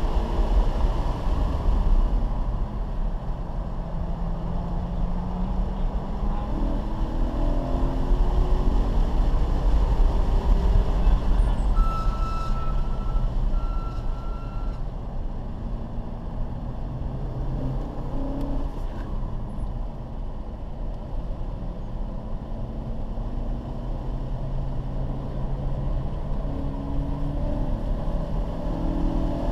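Car engine and road noise heard inside the cabin while driven at speed around a track, the engine note rising and falling. Two short electronic beeps sound about twelve seconds in.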